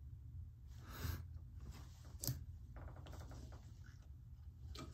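Faint handling of a paper coffee cup as a man lifts it and drinks: a light tap a little over two seconds in, then quiet sips, over a low steady room hum.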